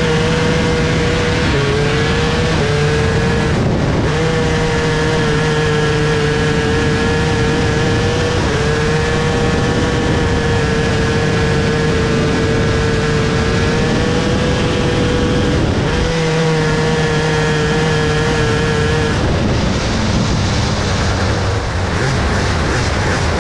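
A micro sprint car's motorcycle engine, recorded on board, running flat out at high revs. The note holds nearly steady with a few brief dips in pitch, over a rough rush of wind and dirt noise. About 19 seconds in the clear engine note fades, leaving a rougher, noisier sound.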